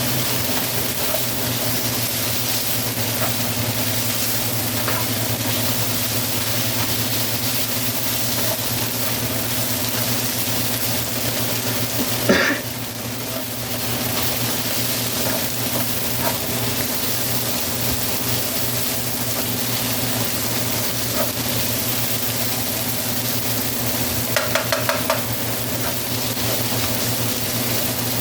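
Mushrooms and green peppers sizzling in a frying pan as they are stirred, over a steady low hum. There is one sharp knock about twelve seconds in and a short clatter of clicks near the end.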